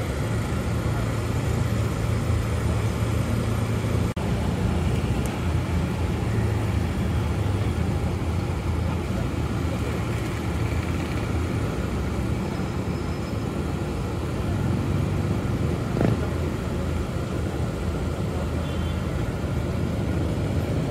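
Coach's diesel engine idling steadily, a low even hum over bus-terminal background noise, with one short knock about 16 seconds in.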